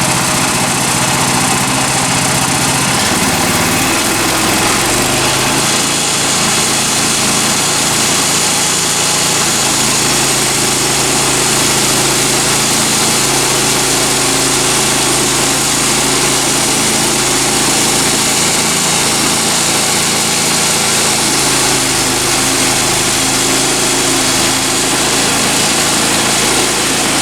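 Woodland Mills HM126 bandsaw mill's small gasoline engine running steadily at speed, its pitch dropping slightly about four seconds in.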